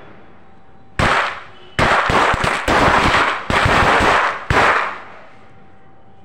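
A firecracker going off in a rapid string of loud cracks and bangs. It starts about a second in with a single crack, runs for about four seconds as a dense volley, and ends with one last bang.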